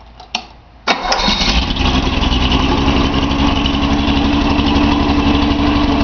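Datsun 280Z's L28 straight-six, run on a stand with a short exhaust pipe, starts about a second in, catching almost at once, and settles into a steady idle. It idles with a misfire on cylinder 6, which the owner thinks comes from a dirty filter in that injector's tip leaving the cylinder too lean.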